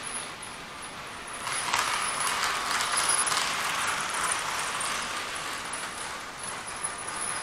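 A model train running on the layout's track: a steady metallic rumble of wheels on rail and the locomotive's motor, with light clicking. It swells about a second and a half in and eases off over the following seconds.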